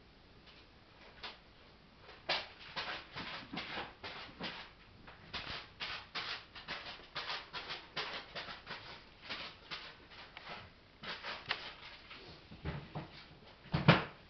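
Zipper on a hard-shell pet carrier backpack being slowly unzipped by hand: a long irregular run of small clicks as the slider moves around the shell. A single louder thump near the end.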